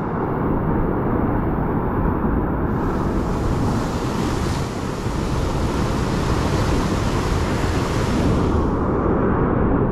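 Ocean surf breaking and washing over a rock ledge close below, a steady loud roar of whitewater, with wind rumbling on the microphone.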